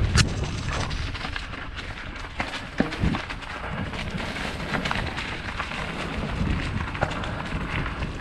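Trail ride on a dirt trail: a steady rumble of wind on the microphone with scattered sharp clicks and knocks from the tyres and the bike.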